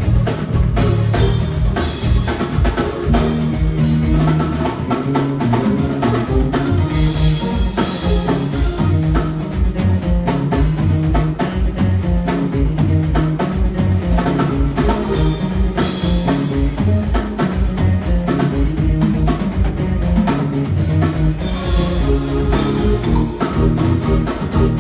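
Live band playing an instrumental groove at a sound check: full drum kit with bass drum, snare and rimshots under a bass line.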